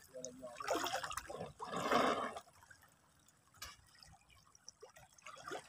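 Shallow seawater splashing and sloshing as people wade and handle their catch in it: two swishing bursts in the first half, then mostly quiet with a few small drips.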